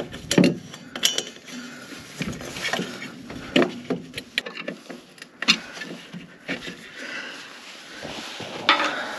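Irregular clicks, knocks and light metallic clinks as an LED headlight lamp is pushed into its metal headlight housing, turned to seat it, and handled with a screwdriver.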